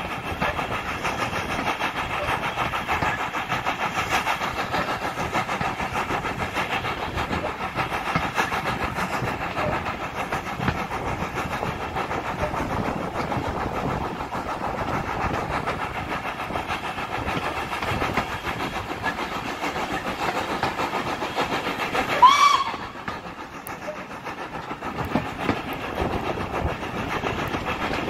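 Steam-hauled train heard from a coach window, with the steady running noise of the coaches on the track. About 22 seconds in comes one short, loud blast of the steam locomotive's whistle.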